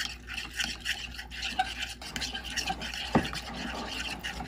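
A spoon stirring a thick Greek-yogurt marinade in a glass bowl: repeated wet scraping strokes with small clicks against the glass, one sharper click about three seconds in.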